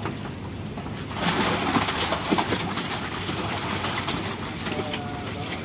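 Catfish thrashing and splashing in a shallow tub of water as a long-handled net is worked among them; the splashing is loudest from about a second in and eases off after about three and a half seconds.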